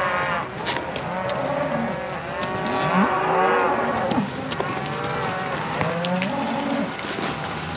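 A herd of cattle mooing, many calls overlapping and following one another without a break.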